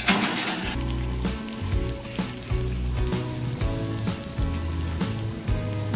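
Sweet potato cobbler, fresh from the broiler, sizzling in its glass baking dish as its sugar-and-butter syrup bubbles. Background music with a steady bass line plays over it.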